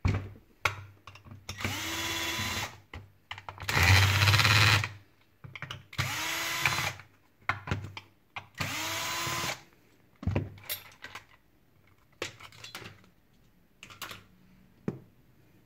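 Cordless drill-driver backing screws out of a chainsaw's starter cover in four short runs of about a second each, every run spinning up with a quick rising whine and then holding steady; the second run is the loudest. Between and after the runs come short clicks and knocks of screws and plastic parts being handled.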